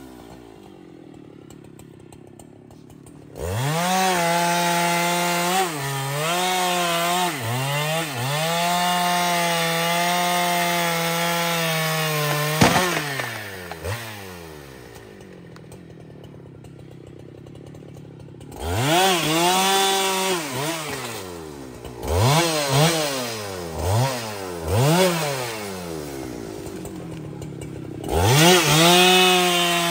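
Husqvarna 395XP two-stroke chainsaw idling, then run up to full throttle a few seconds in and cutting through a thick log, its pitch dipping repeatedly as the chain loads in the wood. It drops back to idle about halfway through, is revved in several short bursts, idles, and revs up again near the end.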